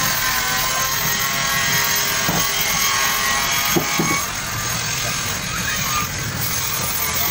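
Steady loud machine noise with several high whining tones running through it.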